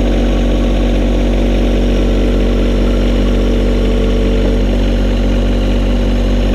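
John Deere 1025R compact tractor's three-cylinder diesel running steadily, revved a little above idle, as the tractor creeps backward in low range.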